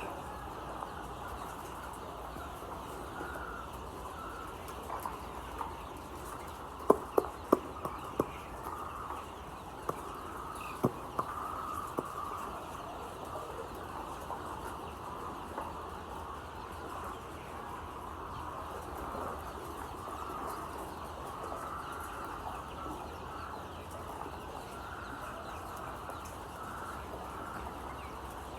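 A large brood of layer chicks peeping and cheeping continuously. A few sharp knocks come about seven to eleven seconds in.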